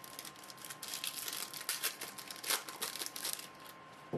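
Plastic-foil trading card pack wrapper crinkling and tearing as it is handled and opened, a dense crackle for about three seconds, with a single knock at the very end.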